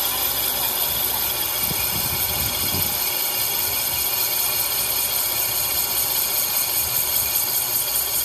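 Lathe turning a brake disc, a carbide insert cutting the inside of the spinning disc and throwing off chips: steady machining noise with a high whine.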